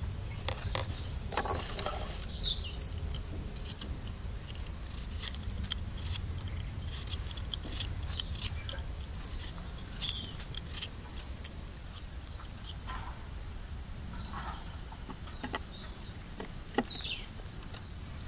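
Small birds chirping in short, high calls every few seconds, over scattered light clicks and taps and a low steady rumble.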